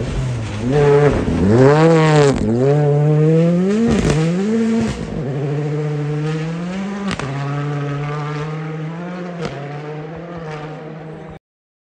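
Ford Fiesta rally car's engine revving hard, its pitch swooping up and down through gear changes and lifts. After about five seconds it settles into a steadier note that slowly fades, with a couple of sharp cracks. The sound cuts off suddenly near the end.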